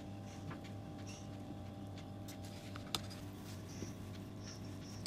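Black whisk beating pancake batter in a glass bowl: soft, irregular ticks and scrapes against the glass, with a sharper click about three seconds in, over a steady low hum.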